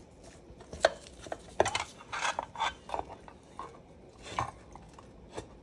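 Aluminium outboard fuel pump case being separated and handled: irregular metal clicks, taps and scraping, the sharpest click a little under a second in and a cluster of them in the middle.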